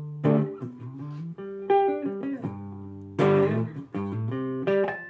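Guitar music: picked guitar chords struck about every second and a half, each left to ring.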